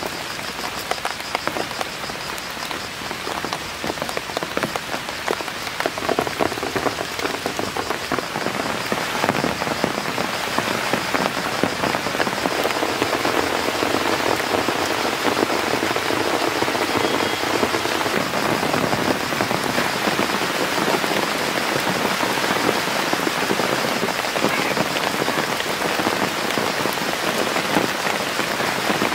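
Steady rain falling on leaves, a dense patter of countless drops that grows a little heavier over the first several seconds and then holds steady.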